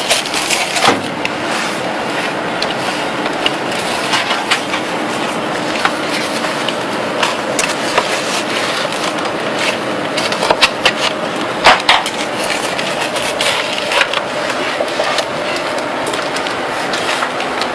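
Irregular plastic clicks and knocks as an infrared touch-overlay frame is handled and pressed into place around a monitor's bezel, with a few louder knocks about two-thirds of the way through, over a steady background hiss.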